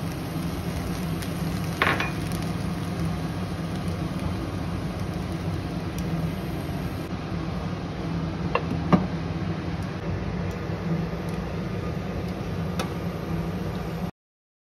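Steady hum and hiss of an induction cooktop under a pan of rice, with a clink about two seconds in and a glass lid knocking down onto the pan about nine seconds in. The sound stops abruptly near the end.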